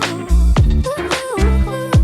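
Upbeat funk-style background music with a steady, deep beat and a gliding melody.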